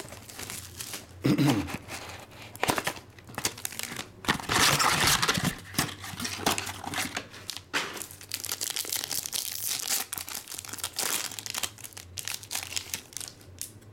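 Clear plastic shrink-wrap and a foil trading-card pack wrapper crinkling and tearing as they are opened by hand, in a run of irregular rustles that is busiest about four to five seconds in.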